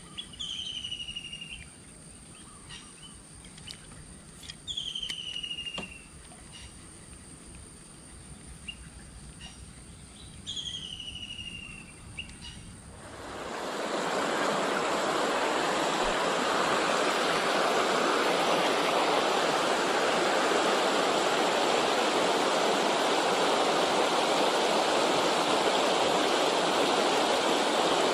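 A bird gives three single falling calls, several seconds apart, over a quiet stream. About halfway through, the loud steady rush of water pouring over a small river weir takes over.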